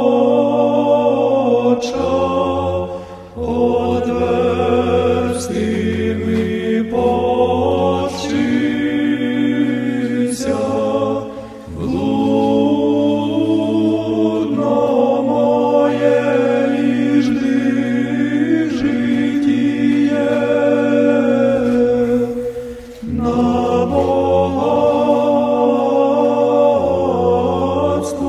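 Choral chant: a choir singing slow, held phrases over a low sustained drone note, with short breaks between phrases.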